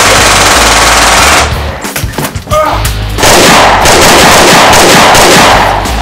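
Two long bursts of automatic rifle fire, the first in the opening second and a half, the second starting about three seconds in and lasting nearly three seconds, over rock music.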